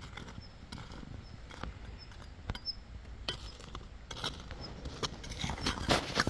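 Irregular scuffs and crunches of footsteps on dry, clod-strewn ploughed soil, getting louder and busier near the end. Faint short high chirps are scattered through it.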